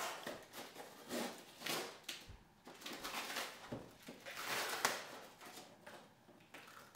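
Cardboard shipping box being handled and opened by hand: a series of rustling, scraping noises in uneven swells, loudest about four to five seconds in.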